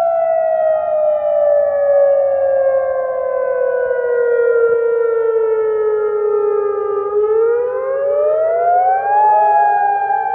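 Civil defence siren wailing: its pitch falls slowly for about seven seconds, climbs again over about two seconds, then begins another slow fall.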